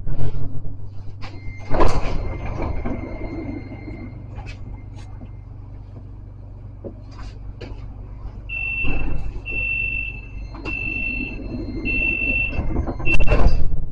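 Tram door warning signal: five long, high beeps about a second each, ending in a loud burst of noise as the doors move, over the tram's steady low hum. Earlier a steady high tone sounds for a few seconds, with another loud burst of noise as it starts.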